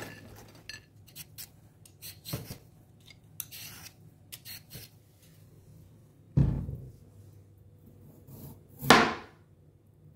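Light clicks and scratchy ticks, then two dull thumps of peeled potatoes being handled on a plastic cutting board, the second the louder.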